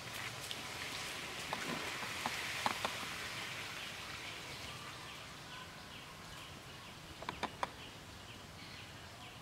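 Outdoor ambience: a steady hiss with a few sharp clicks, loudest in a group about seven and a half seconds in, and faint short high chirps repeating two to three times a second in the second half.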